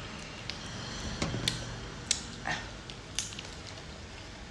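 Close-up eating sounds: scattered sharp clicks and soft wet smacks from chewing and pulling apart a boiled chicken, with a brief high squeak about two and a half seconds in.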